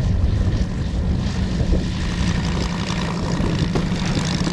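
Moki 250 radial engine of a giant-scale RC F4F Wildcat running steadily, throttled back as the model touches down and rolls out on grass, with the propeller spinning.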